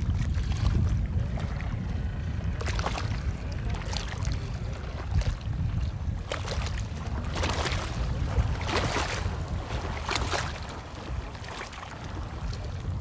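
Water splashing and sloshing several times as long poles are worked in the water beside a wooden dugout canoe, over steady low wind noise on the microphone.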